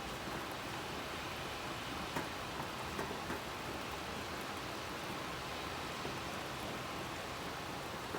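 Steady rain falling, with a few sharper drop taps about two to three and a half seconds in.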